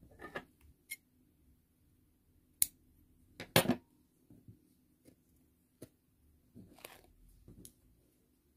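Scattered faint, sharp clicks and taps from hands working crochet thread and elastic on a plastic jar, the loudest a double click about three and a half seconds in.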